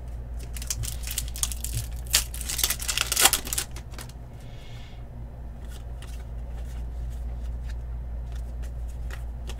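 Trading cards being handled and flicked through in the hands: a flurry of quick snaps and rustles in the first few seconds, then only scattered light clicks, over a steady low hum.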